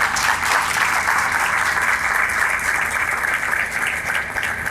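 Audience applauding: the steady, dense clapping of many hands.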